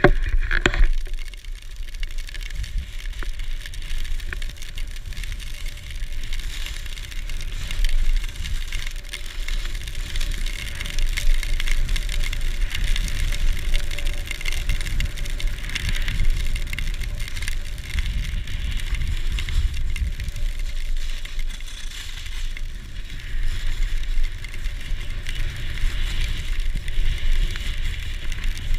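Wind rumbling on the microphone of a pole-held action camera during a downhill ski run, with the hiss of skis sliding over snow that swells and fades as he turns.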